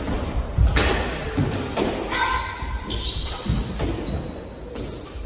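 Squash doubles rally: the ball is struck by racquets and smacks off the court walls, sharp hits about every second, with sneakers squeaking on the hardwood floor between shots.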